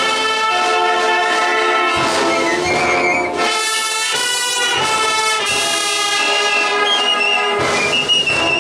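Guatemalan processional band of clarinets, saxophones, trumpets and tubas playing a slow Lenten funeral march in long held chords that change every second or two.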